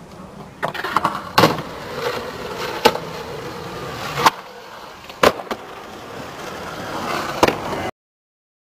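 Skateboard wheels rolling on concrete, with sharp clacks of the board hitting the concrete about seven times as tricks are landed. The sound cuts off abruptly near the end.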